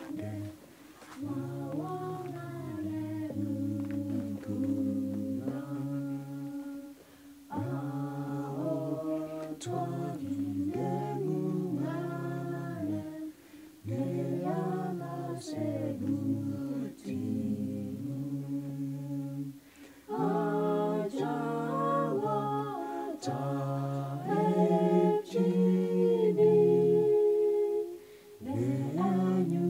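A vocal group singing a hymn in Kalenjin in close harmony, unaccompanied, in sung phrases with short breaths between them.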